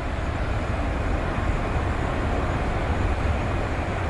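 Aircraft engine noise at an airport: a steady, deep rumble with a hiss above it, having built up just before.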